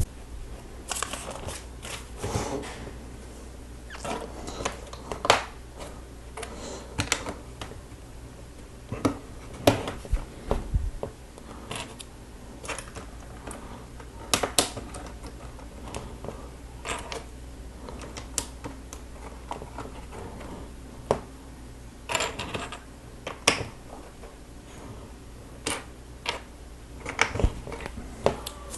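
Plastic Lego bricks being handled and pressed together: irregular clicks and small clattering sounds, with a few sharper snaps.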